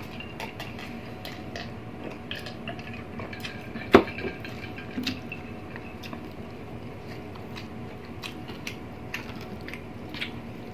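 Close-miked mouth noises of two people eating braised pork leg and noodles by hand: chewing, biting and small wet clicks. One sharp knock about four seconds in stands out as the loudest sound.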